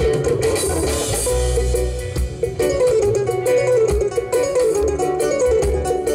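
Live band playing: an electric guitar picks a fast, busy melody over bass guitar and drums.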